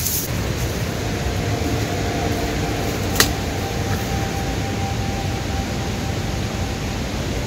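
Steady rushing noise with a strong low rumble and a faint steady hum above it, and a single sharp click about three seconds in.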